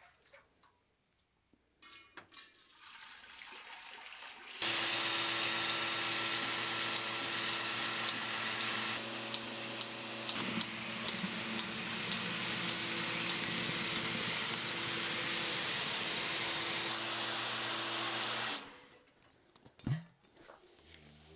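Water running hard from a tap, turned on suddenly about four and a half seconds in and shut off about fourteen seconds later, with a steady hum under the rushing.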